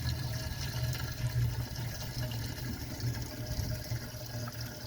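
Gasoline being poured from a container into the lawn tractor's fuel tank, a steady liquid pouring sound, over a low rumble.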